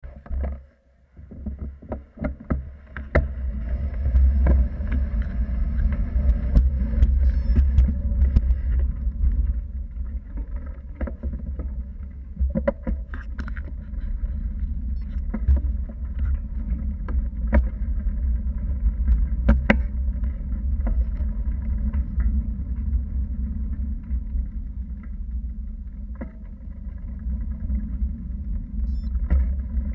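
Wind buffeting the microphone of a handlebar-mounted camera on a moving road bike: a steady low rumble with tyre-on-road noise. Scattered sharp clicks and knocks come from bumps in the road. The rumble builds up about a second in as the bike gets going.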